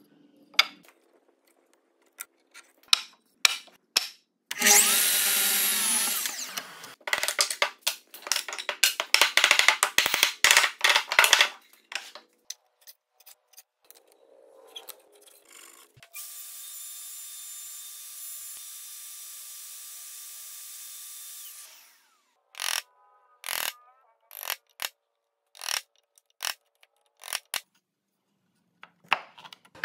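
Woodworking shop sounds: a power tool runs loudly for a second or two, then a quick run of sharp knocks and strikes, a steady machine hiss with a faint whine for about six seconds, and scattered taps and knocks near the end.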